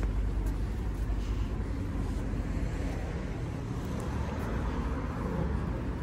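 Street traffic noise: a steady low rumble of road vehicles, louder over the first second or two and then easing.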